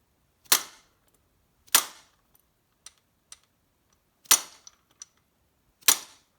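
Sand-filled plastic dead blow hammer striking a socket four times, driving a tight-fitting piston pin into a piston. Each blow is a sharp crack with a brief ring, at uneven intervals; the pin is moving only slowly under the blows.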